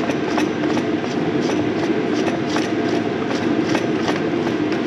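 Irregular metal clicks and scrapes of a grease gun's grease canister being unscrewed by hand from the gun head, over a steady low hum.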